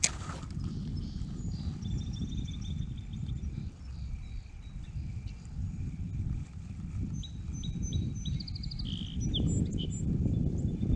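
Wind buffeting the chest-mounted camera's microphone in an uneven low rumble, with songbirds chirping. One bird gives a quick run of short repeated notes about two seconds in, and several chirps come between about seven and ten seconds.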